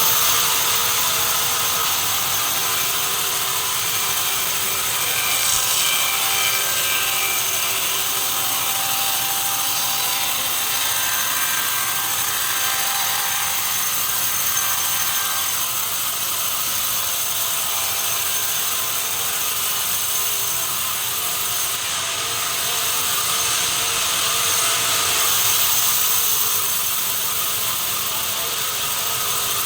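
Sawmill saw running steadily through timber, a continuous cutting noise with steady tones.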